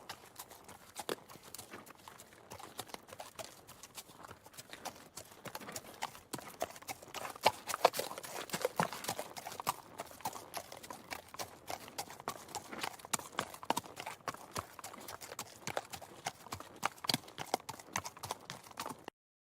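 A horse's hooves clip-clopping, a rapid, uneven run of hoofbeats that is loudest in the middle and cuts off suddenly near the end.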